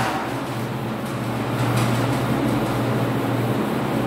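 A cloth wiping a whiteboard, a steady rubbing swish, over a low steady hum.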